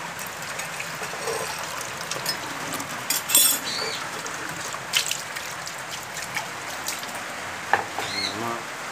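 Tap water running steadily into a mug at a kitchen sink as it is rinsed. Several sharp clinks and knocks from the mug being handled, the loudest about three seconds in.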